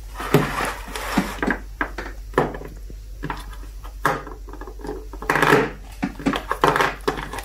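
Hard plastic toy farm animals being set down, tapping and clacking against a tabletop and a plastic toy barn in a run of irregular knocks.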